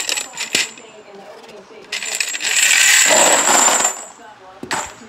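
Empty pistol brass cartridge cases jingling and clinking against one another as they are shaken through a Dillon CV-500 vibratory tumbler rigged as a brass sorter. A few clinks come first, then a louder stretch of dense rattling starts about two seconds in and lasts about two seconds, and a single clink comes near the end.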